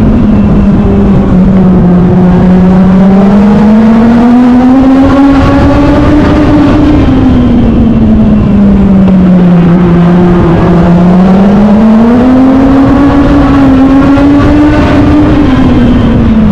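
Legend race car's Yamaha motorcycle engine at racing speed, heard from onboard; the engine note rises on the straights and falls through the turns twice, with a quick drop near the end. Very loud.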